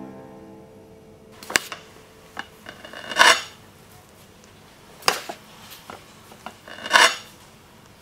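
A knife cutting into a chocolate cake on a plate. Sharp clinks of the blade against the plate and utensils are broken by two louder, longer cutting sounds, about three and seven seconds in.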